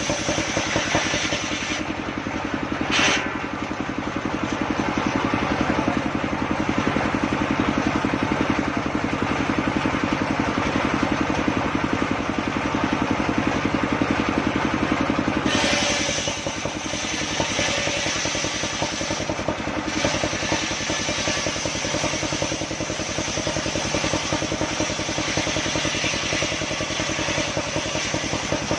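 Engine of a homemade circular sawmill running steadily while the saw cuts a log. A short sharp click about three seconds in, and the higher-pitched part of the sound shifts about two seconds in and again about fifteen seconds in.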